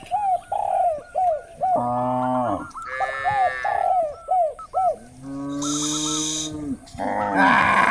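Cattle mooing: several long, low moos, the last one louder and rougher near the end. Between the moos a bird gives quick, short calls repeated about twice a second.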